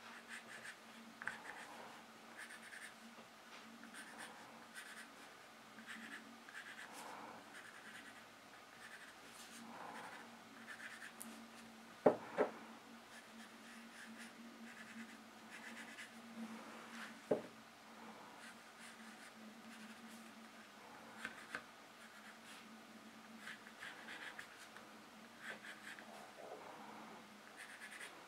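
Graphite pencil scratching faintly on paper in short, repeated shading strokes, with a few sharper light taps about halfway through.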